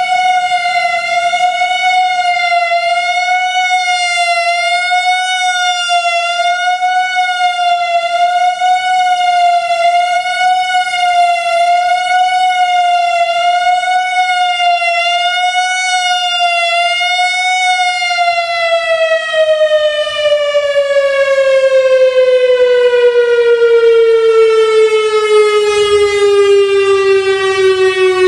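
Analog Whelen WPS-3000 electronic storm siren sounding its steady alert tone, a single held pitch with a slight regular waver about once a second. About two-thirds of the way in it winds down, the pitch falling smoothly to roughly half.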